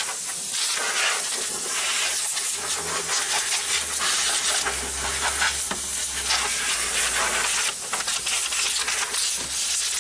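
Compressed air hissing from an air-line nozzle in a steady stream, swelling and easing a little as it is played over the parts, blowing dust out of a commercial bottle cooler's refrigeration compartment.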